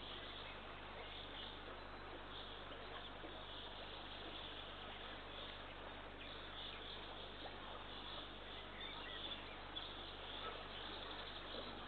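Steady hiss of an outdoor nest-camera microphone with faint, scattered high bird calls through it.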